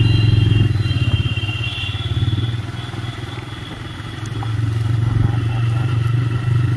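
TVS Raider 125's single-cylinder four-stroke engine running as the motorcycle rides slowly over a rough dirt road. It eases off about three seconds in and picks up again a couple of seconds later.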